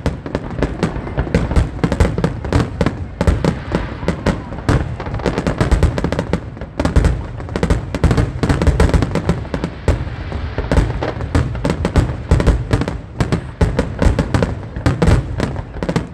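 Fireworks going off in a dense, loud barrage of bangs, several a second and often overlapping.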